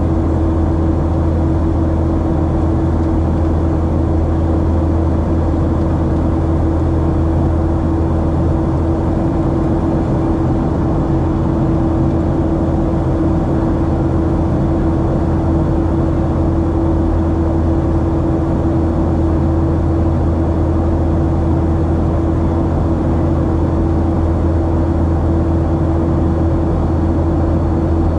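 Boeing 737-700 cabin noise in flight: the steady drone of its CFM56-7B engines and the airflow past the fuselage, a constant low hum with one steady mid-pitched tone over an even rush.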